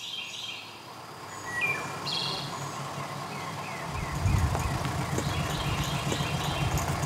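Birds chirping and calling, then from about four seconds in the low engine rumble of a black London taxi cab pulling up.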